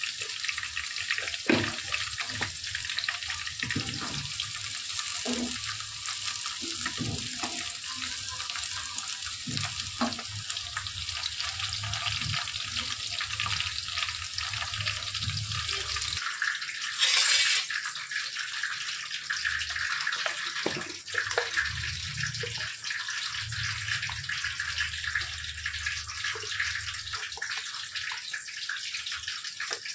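Sliced onions frying in hot oil in an aluminium kadai: a steady sizzle, with a wooden spatula stirring and knocking against the pan now and then. A brief louder burst comes a little past halfway.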